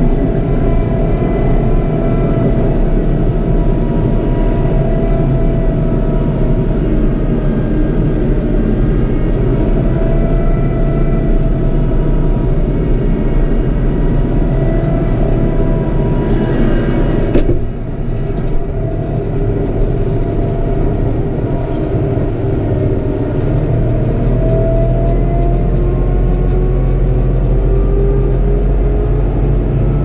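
Fendt tractor's engine and drivetrain running while driving, heard from inside the cab as a steady drone with a whine on top. The sound dips briefly a little past halfway, then runs on.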